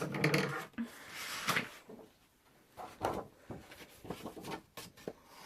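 Craft materials being handled on a tabletop: paper rustling with several light knocks and clicks.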